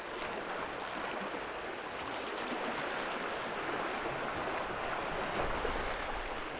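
Sea water washing and swirling over the rocks at the foot of a shore ledge: a steady rushing wash of surf.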